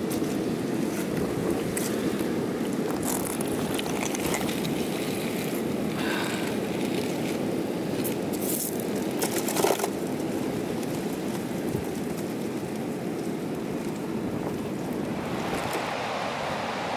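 Steady rushing of surf and wind on a rocky shoreline, with a few short knocks, the loudest about ten seconds in.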